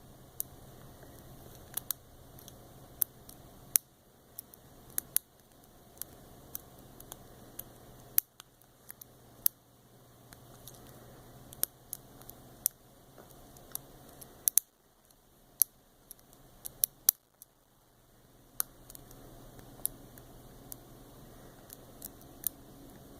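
Small sharp clicks at irregular intervals, a second or so apart and some louder than others, from a lock pick and tension wrench working the pins of a 6-pin Best SFIC padlock core during single pin picking.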